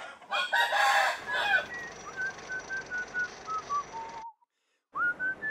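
A rooster crows once, loud and about a second long. It is followed by a whistled tune of held notes stepping down in pitch, which breaks off into half a second of silence before the whistling starts again near the end.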